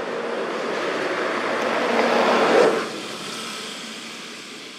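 A motor vehicle passing, its engine and road noise swelling to a peak about two and a half seconds in, then dropping away quickly.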